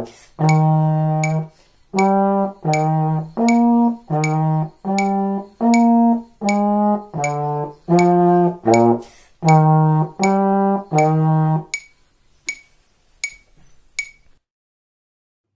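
Tenor trombone playing a technical exercise of short, separate notes moving between a few pitches, in time with a clicking metronome. The playing stops about twelve seconds in, and the metronome ticks on alone, about one and a half clicks a second, for two more seconds.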